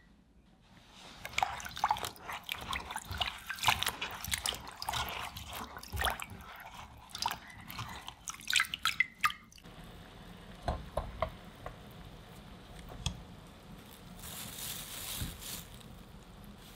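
Hands swish and rub broccoli florets in a glass bowl of water, with dense splashing and dripping. About ten seconds in, this gives way to a soft steady hiss of hot water in a pan, with a few light taps as wooden chopsticks move the florets.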